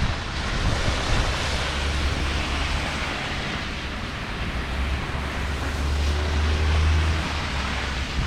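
Strong gusty wind on the camera microphone: a steady rushing noise with a low rumble that swells about five seconds in and eases near the end.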